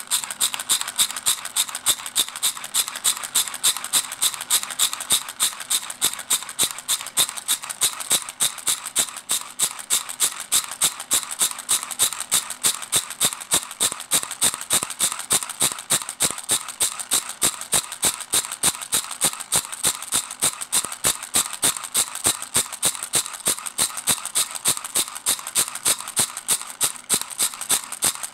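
A steady, rhythmic scraping rattle, about three short strokes a second, repeating evenly without change.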